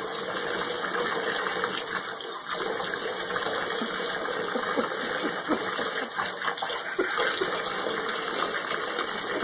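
Water running steadily from a bathtub tap into the tub, an even rushing hiss that starts suddenly.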